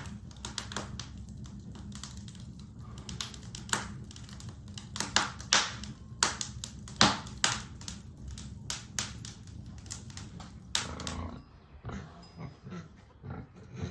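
Wood fire crackling in a fireplace: irregular sharp pops and snaps over a low steady rumble, thinning out about eleven seconds in.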